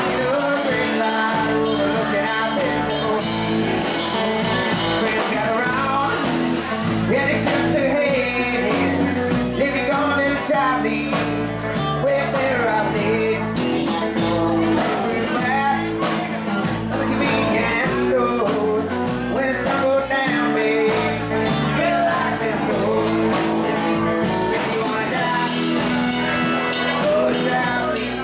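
Live rock band playing amplified: electric guitars and a drum kit, with a man singing into a microphone.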